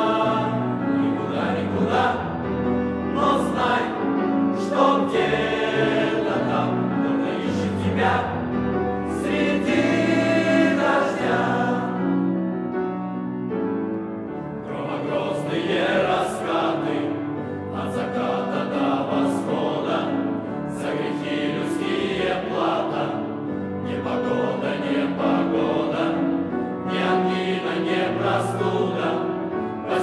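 Mixed choir of men's and women's voices singing, amplified through stage microphones. The sound thins briefly around the middle before the full choir swells again.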